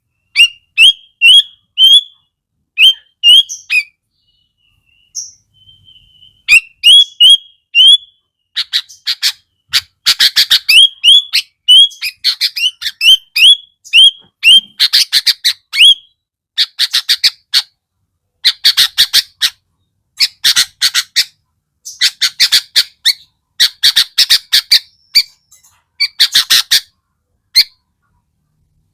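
Sooty-headed bulbul (kutilang) song. First comes a series of short, rising whistled notes. From about eight seconds in, harsh raspy chattering bursts come in repeated bouts, loud and interleaved with the whistles.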